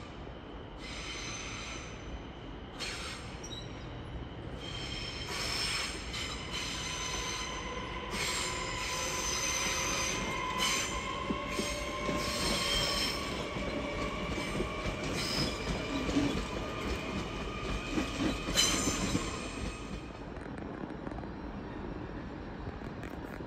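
Railway wheels squealing against the rails as a train rolls over curved track: several high squeals that come and go and slowly shift in pitch, loudest in the middle and dying away about twenty seconds in.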